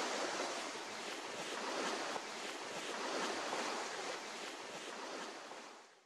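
Small lake waves washing against a stony shingle shore, a steady hiss that swells and eases every second or so, with light wind on the microphone. It fades out near the end.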